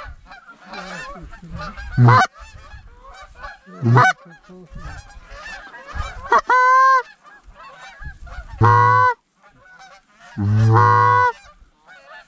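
Canada geese honking: a steady chatter of many geese, with loud honks about every two seconds that grow longer toward the end.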